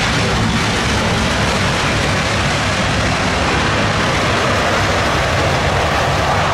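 Boeing 777 jet engines on the landing roll just after touchdown: a loud, steady rush of engine noise.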